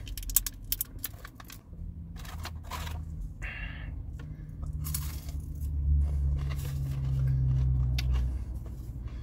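Paper takeaway packaging rustling and clicking as crisscross fries are picked out and dipped, then crunchy chewing. Under it a low steady hum starts about two seconds in, swells past the middle and stops near the end.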